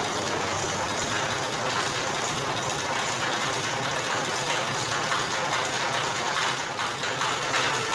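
Motor-driven sugarcane juice press running with a steady, even mechanical noise.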